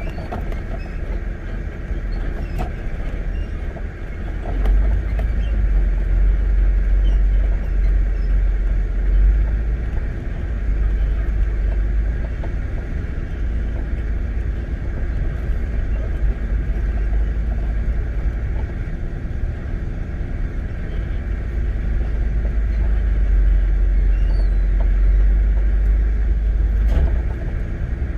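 Wind buffeting the microphone: a low rumble that swells in two long gusts and eases between them.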